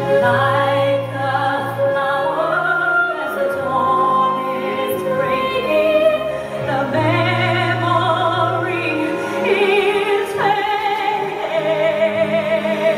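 Music with operatic singing: a singer holds long notes with a wide vibrato over steady, low instrumental accompaniment.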